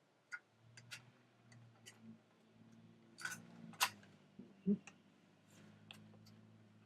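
Scattered sharp clicks and clacks of hard plastic being handled, as a cassette tape and tape player are fumbled with, over a faint low hum.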